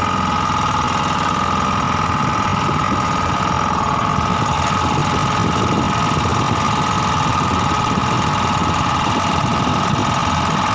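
An engine on a small fishing boat running steadily at idle, with a constant high tone over a low rumble.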